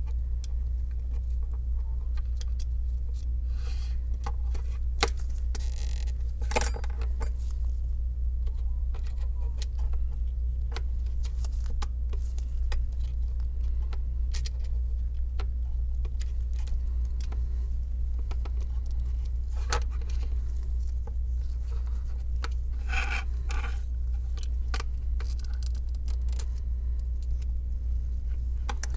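Small scattered clicks and scrapes of metal tweezers against the iPhone 7's frame and internal parts as battery adhesive strips are worked loose, with a few quick runs of clicks. A steady low hum runs under it.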